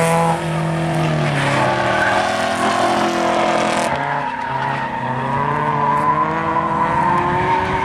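Drifting cars' engines revving hard, their pitch rising and falling with the throttle, over the hiss and squeal of sliding tyres. The sound changes abruptly about four seconds in, as a different car takes over.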